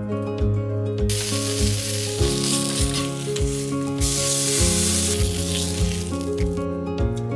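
Salmon fillet sizzling as it pan-grills in a nonstick frying pan, starting about a second in and dying down near the end, loudest for about a second in the middle, as the skin and flesh char.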